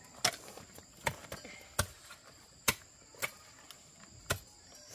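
About six sharp strikes at uneven intervals of half a second to a second, as of a blade chopping, over a steady high-pitched drone of insects.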